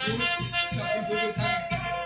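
Live folk music for the Romanian bear dance: a drum beating about four times a second under a high, reedy wind-instrument melody.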